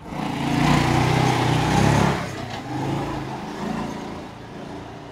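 A motor vehicle driving past, its engine and road noise loudest from about half a second to two seconds in, then fading away.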